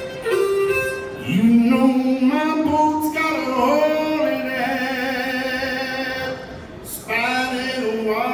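Live blues band playing: a male voice sings long held notes over piano, electric guitar, upright bass and drums.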